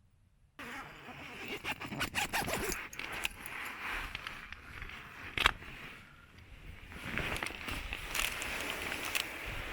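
A zipper pulled in several uneven runs, with scraping and clicking, and one sharp click about five and a half seconds in.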